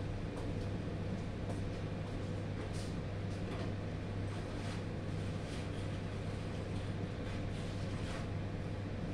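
Steady low machine hum, like a motor or appliance running, with faint scattered clicks and knocks over it.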